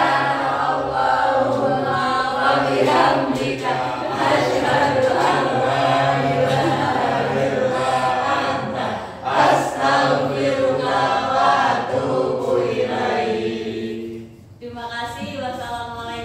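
A class of students reciting a closing prayer together in unison, a chanted group recitation; the voices break off briefly about fourteen seconds in and start again.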